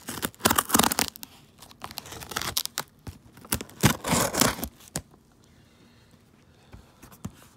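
Packing tape on a cardboard shipping box ripping as it is cut open with scissors, in three noisy tearing runs over the first five seconds, then only light handling.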